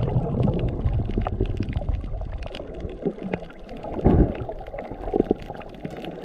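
Water sloshing and gurgling close to the microphone, with a muffled low rumble and scattered sharp clicks and knocks, loudest about four seconds in.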